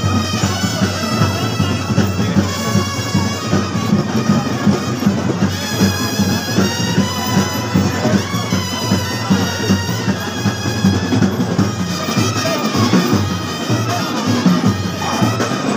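Loud music: wind instruments play held, wavering notes over steady drumming.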